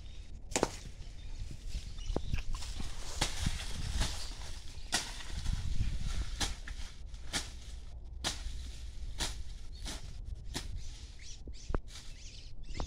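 Footsteps and rustling through dry maize leaves and stalks: irregular crunches, roughly one or two a second, over a steady low rumble.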